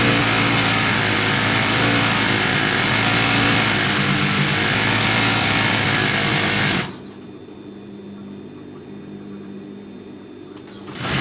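Industrial lockstitch sewing machine stitching a folded fabric strip for about seven seconds, then stopping abruptly; a steady low hum remains, and a short burst of stitching comes near the end.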